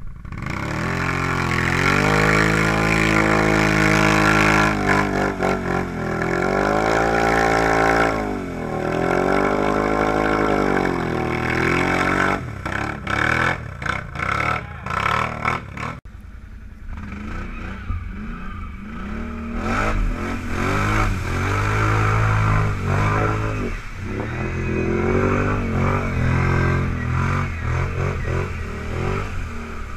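ATV engines revving hard through a mud hole, pitch rising and falling in repeated surges of throttle. About halfway through the sound cuts abruptly, and engine revving picks up again as the next ATV drives through the mud.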